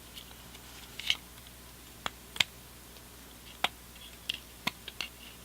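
Folding multi-tool being handled, its blades and implements swung out and snapped into place: about seven sharp metal clicks at irregular intervals.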